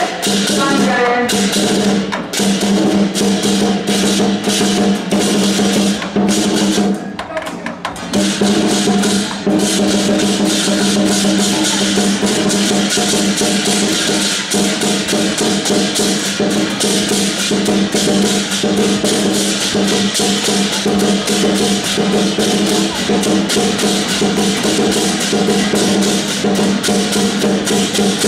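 Lion dance percussion: a large drum beaten in rapid strokes with crashing cymbals, playing continuously and loudly, with a brief drop about seven seconds in before it picks up again.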